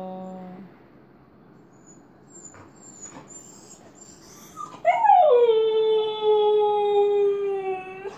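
Siberian husky howling for its absent owner: a low steady note fades out within the first second, then about five seconds in a loud howl starts high, drops, and holds one pitch for about three seconds before breaking off.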